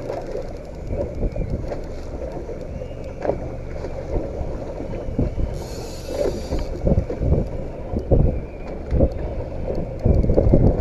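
Wind buffeting the microphone and water against a small boat at sea, a steady low rumble broken by irregular low thumps, heavier in the second half. About six seconds in, a brief high buzz lasting about a second.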